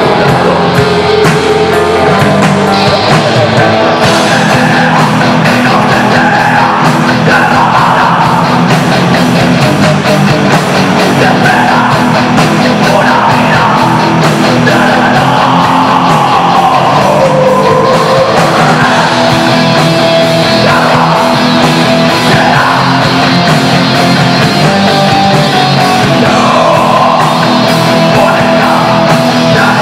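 Heavy metal band playing loud and live, with distorted electric guitars and drums, and a winding melodic line over them.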